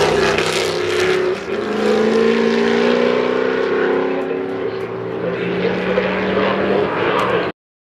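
Historic Can-Am race car engines running loudly, their pitch rising as they accelerate, until the sound cuts off abruptly about seven and a half seconds in.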